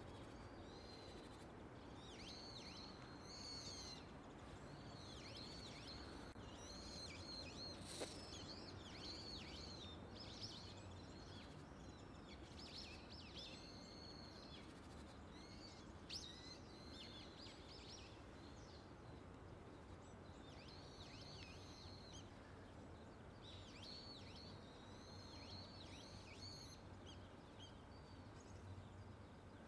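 Faint outdoor ambience with small birds chirping in repeated bursts of short, high calls, over a low steady hum; a single sharp click about eight seconds in and another about sixteen seconds in.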